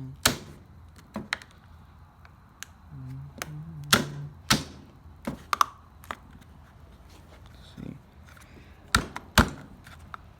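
Sharp clicks and knocks at irregular spacing, about a dozen of them, the loudest pair near the end: a steering-wheel center cap being fitted and pressed into place on a riding mower's steering wheel.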